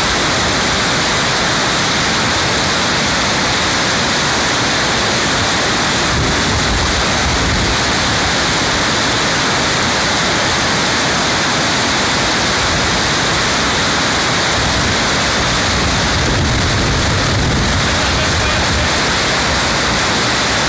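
Mountain stream in spate, swollen with thawing snow: fast white water rushing over rocks in a steady, loud, even rush.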